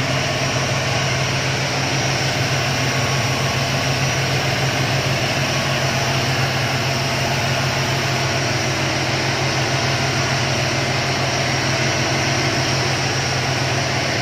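Motorboat engine running steadily with the boat under way: a constant low drone under a steady rush of water and wind.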